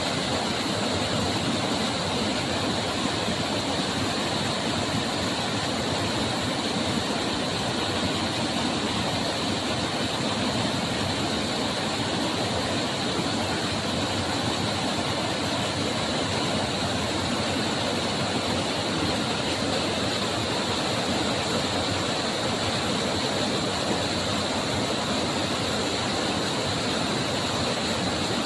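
Steady rushing of running water, an unbroken even hiss with no change in loudness.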